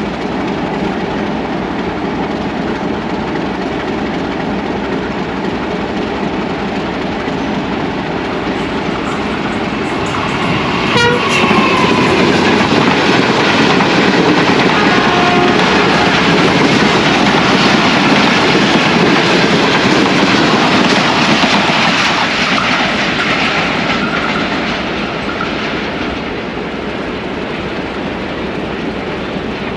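Pakistan Railways express passenger train running through the station without stopping, led by a ZCU-20 diesel-electric locomotive: a steady rumble of the engine and of coach wheels on the rails. It grows louder about a third of the way in as the coaches pass close by, then eases off near the end.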